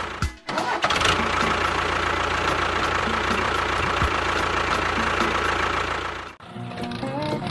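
A motor running steadily, a dense mechanical noise with a thin high whine. It cuts off sharply just after the start and again about six seconds in. Near the end a few stepped, rising electronic tones begin.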